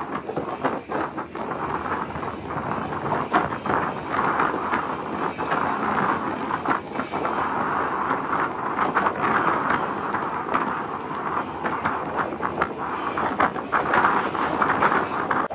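A loaded iron ore train's steel wagons rolling on the rails, heard from on top of one wagon: a continuous rattling din of wheels and couplings, full of sharp knocks and clanks.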